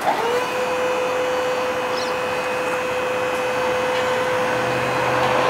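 Dump trailer's electric hydraulic pump motor starting with a quick rising whine, then running at a steady pitch.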